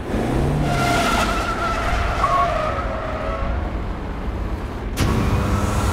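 Car accelerating hard with its tyres squealing in long wavering tones over engine and road noise. About five seconds in, a sudden fresh burst of tyre squeal and engine noise cuts in.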